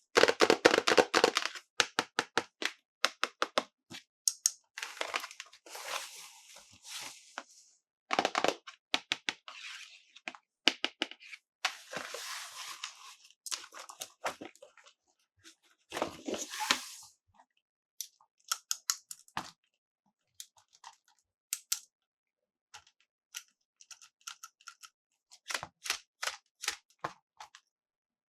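Plastic toy packaging and parts being handled: bursts of crinkling and tearing mixed with many sharp plastic clicks and taps, in irregular groups with short pauses between.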